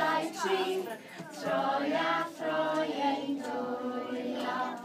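A group of young children singing a song together, in a string of held notes.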